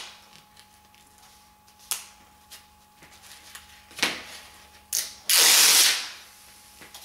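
Backing paper being peeled off an abrasive sheet, with paper rustling and several sharp clicks from the handling. About five seconds in, a loud hiss lasts just under a second.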